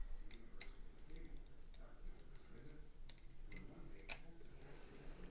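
Small metal tools clicking and scraping against a padlock's lock cylinder during disassembly: a scatter of faint, sharp metallic clicks, the loudest about four seconds in.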